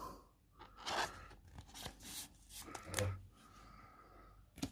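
Faint handling of trading cards and their packaging: soft rustles and light taps, a dull thump about three seconds in and a sharp click near the end.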